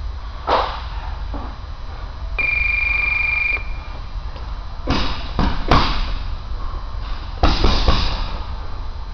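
Gloved punches landing on a heavy bag: a single thud early, then quick flurries of several hits about five seconds in and again near the end. A steady electronic beep sounds for about a second between them.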